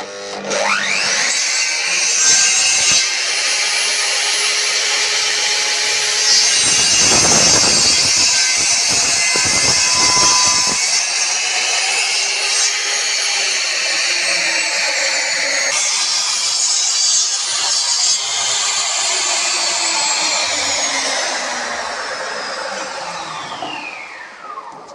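Electric miter saw motor spinning up with a rising whine, its blade cutting through a thick pine block for several seconds in the middle. The motor then winds down with a falling whine near the end.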